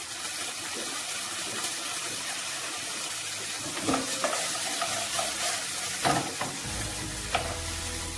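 Freshly added raw potato cubes sizzling in hot oil in a nonstick frying pan, stirred with a wooden spoon: a steady hiss with a few knocks of the spoon against the pan from about halfway through.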